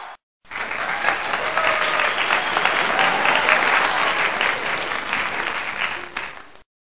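Audience applauding, a dense crowd of clapping hands, starting abruptly about half a second in, then fading a little and cutting off shortly before the end.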